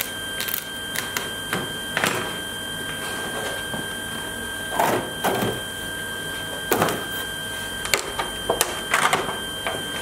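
Thin wood veneer sheets handled on a bench: several papery swishes and rustles as the sheets are lifted, flexed and laid down, over a steady high hum.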